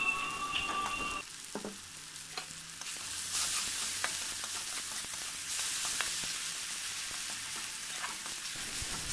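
Onion, tomato and lentil tempering sizzling in oil in a metal kadai while a steel spatula stirs it, with scattered clicks as the spatula scrapes the pan. The sizzling grows louder about three seconds in.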